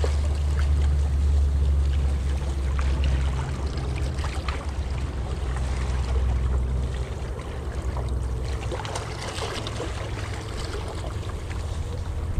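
Wind buffeting the microphone with a steady low rumble, over the rush of flowing creek water. The wind rumble is strongest in the first half and eases off after about seven seconds.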